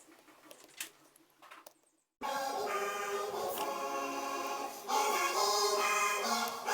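Near silence with a few faint clicks, then background music with choir-like singing cuts in suddenly about two seconds in.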